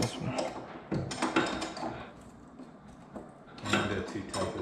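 Metal knocks and scraping clatter from turning the threaded spring-perch and lock rings on a coilover, with sharp clunks at the start and about a second in. A louder clatter with a steady low hum comes in near the end.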